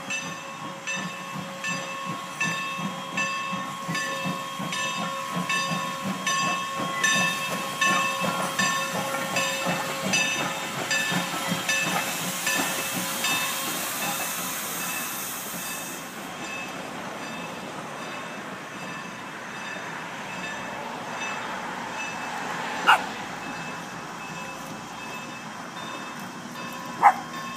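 Strasburg Rail Road steam train passing at a grade crossing. For the first ten seconds or so a bell clangs about two strokes a second. A burst of steam hiss comes as the locomotive goes by, then the passenger cars roll past. Near the end there are two short, sharp sounds.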